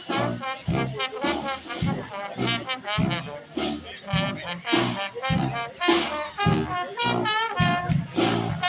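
Live street brass band playing: trombones and trumpets carry a melody over a steady beat.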